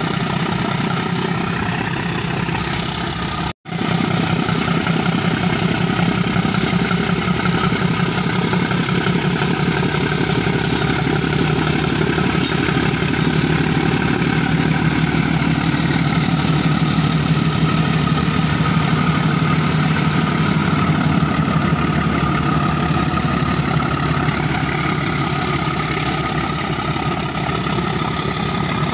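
ALCO diesel locomotive engine working hard under load as it hauls a train, a loud, steady rhythmic throb of exhaust beats, while the locomotive pours out black smoke. The sound cuts out for a moment once, about three and a half seconds in.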